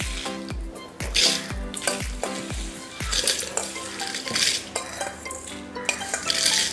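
A steel spoon scraping dry-roasted lentils and dried red chillies across a stainless steel pan in repeated strokes, the grains rattling against the metal. Background music plays underneath, its deep beat about twice a second dropping out about three seconds in.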